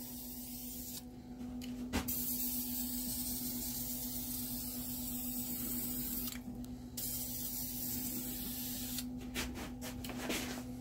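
Krylon aerosol spray-paint can hissing in bursts as a quick coat goes on: a short spray, a long one of about four seconds, another of about two seconds, then several short puffs near the end. A steady low hum runs underneath.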